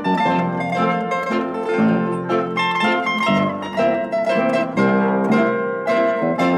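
Background music played on plucked strings, a continuous run of notes.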